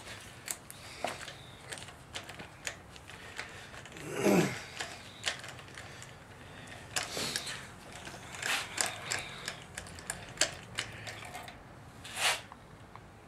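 Ratchet wrench and socket clicking in irregular runs while a spark plug is worked loose and out of the engine head, with one louder scrape about four seconds in.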